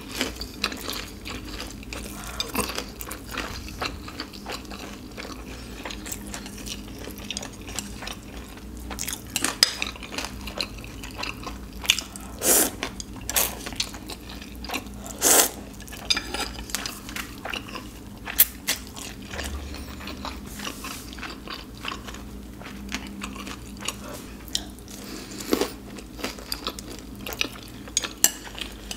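Close-miked eating: chewing a pan-fried dumpling and slurping ramen noodles, with chopsticks clicking against the plate and bowl in scattered sharp clicks.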